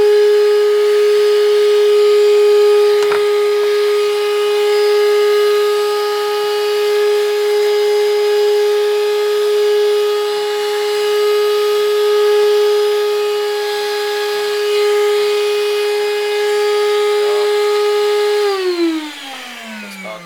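Bissell SpotBot ProHeat spot cleaner's motor running with a steady whine, with one sharp click a few seconds in. Near the end it switches off and spins down, the whine falling in pitch as it fades.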